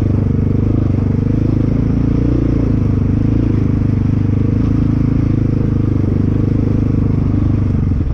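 Motorcycle engine running steadily as the bike rides along at an even, low speed, its note wavering slightly up and down.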